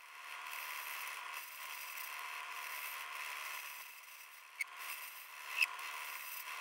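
Lathe tool cutting into the face of a spinning brass disc, a steady scraping hiss of the cut, with two short sharp ticks near the end.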